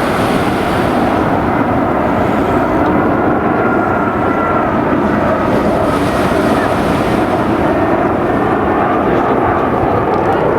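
Airliner engines running as the plane comes in to land, a steady loud roar with a faint whine that drifts slightly in pitch.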